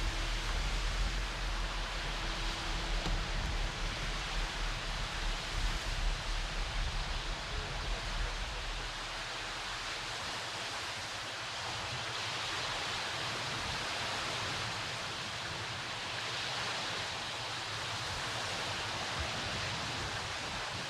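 Steady rushing outdoor noise, with a low rumble that fades out about eight seconds in.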